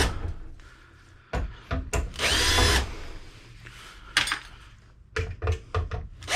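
Power drill spinning briefly in a short burst with a rising whine, between sharp clicks and knocks of metal parts: screws being run out of an old computer case.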